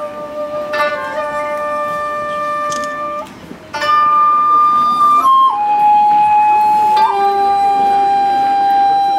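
A flute-like wind instrument playing a slow melody of long held notes. It breaks off briefly a little after three seconds in, then re-enters higher and steps down to a long sustained note.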